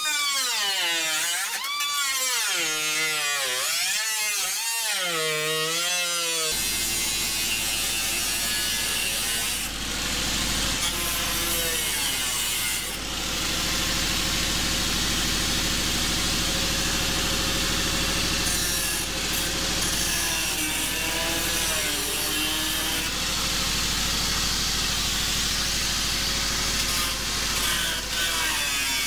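Handheld angle grinder cutting through the sheet-metal cab of a pickup. For the first few seconds its whine dips and rises about once a second as the wheel is pressed into the metal and eased off; about six seconds in it changes suddenly to a steady, dense grinding noise that runs on.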